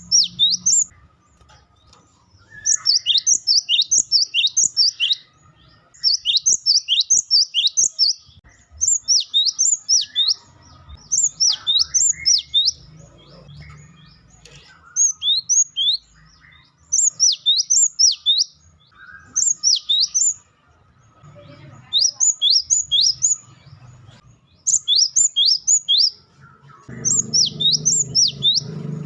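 Cinereous tit (gelatik batu) giving its loud, fast 'wucitan' call. It comes in about eleven short bursts of quick, high notes, each note slurring downward, with brief pauses between bursts.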